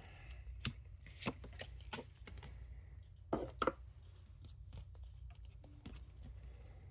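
Pokémon trading cards being handled: a scatter of light clicks and snaps as cards are flicked and slid against each other, with a louder pair a little past halfway, over a steady low hum.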